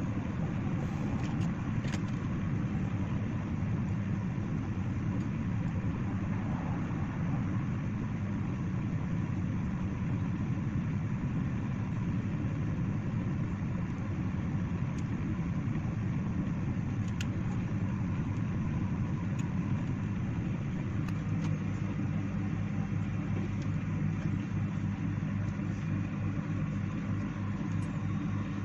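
Hot air rework gun's blower running with a steady low rumbling hum; about two-thirds of the way through the hum turns steadier and more clearly pitched. A few faint light clicks of small parts and tools on the bench.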